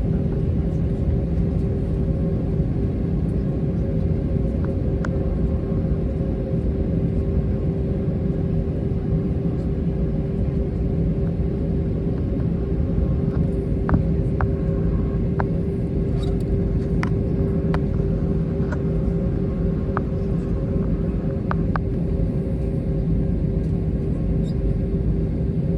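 Inside the cabin of an Airbus A321, its IAE V2500 engines run at a steady low power, heard as an even rumble with a held hum, with a scattering of light clicks about halfway through.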